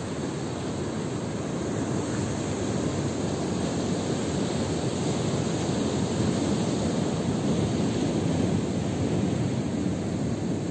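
Sea surf washing steadily over shoreline rocks, a continuous rushing that swells a little in the middle.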